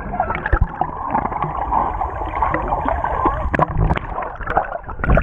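Muffled underwater churning and bubbling heard with the microphone under the surface, with several dull knocks and bumps. The higher sounds are cut off, as they are underwater.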